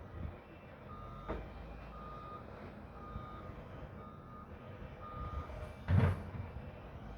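Bulldozer's reversing alarm beeping about once a second over the rumble of its diesel engine. A loud clank about six seconds in.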